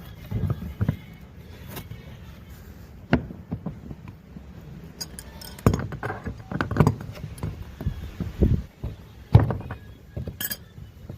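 Irregular knocks, thuds and metal clinks of tools and parts being handled while working on a washing machine's broken gearbox, with one louder knock near the end.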